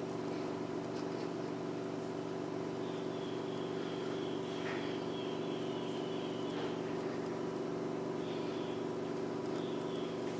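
Domestic cat purring steadily while being stroked on the head and neck.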